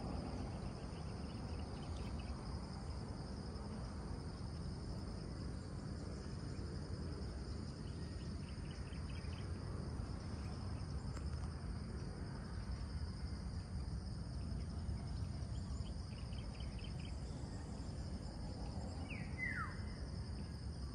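Dawn insect chorus: a steady, high-pitched, continuous drone over a low background rumble. Brief bird trills break in a few times, and near the end one bird gives a single clear whistle that falls in pitch.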